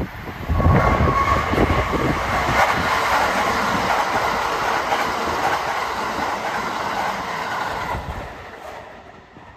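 Kintetsu 1200 and 1201 series electric train passing through the station at speed without stopping, its wheels clattering over the rail joints. It comes in loud about half a second in and fades away near the end as the train draws off.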